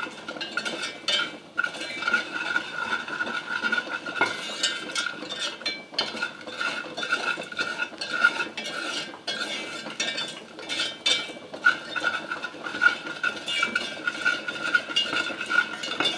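Spoon stirring dry, crystallized sugar in a pot over the flame, with continuous irregular scraping and clinking against the pot. This is the stage of caramel-making where the water has boiled off and the sugar has set dry before it melts again.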